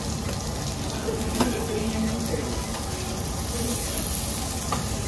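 Slices of beef sizzling steadily on a tabletop Korean barbecue grill plate, with a sharp clink about a second and a half in and a lighter one near the end.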